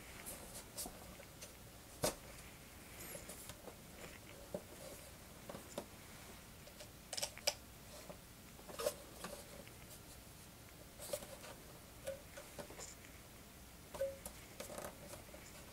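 Irregular small clicks, taps and light scraping of plastic and foam parts being handled and pushed into place on the upper wing of a foam RC model biplane, with a few sharper clicks among them.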